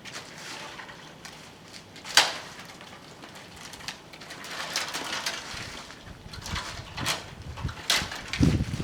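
Branches of a flowering peach tree being handled and broken up: scattered twig snaps and rustling, with one sharp loud crack about two seconds in. Wind buffets the microphone near the end.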